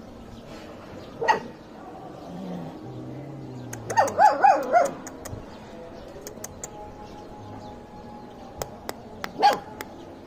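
Dogs barking: a single high bark about a second in, a quick run of about four high yelping barks around four seconds in, and one more bark near the end.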